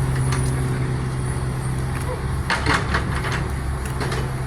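A vehicle engine running steadily at idle, a constant low hum, with a few short knocks about two and a half seconds in.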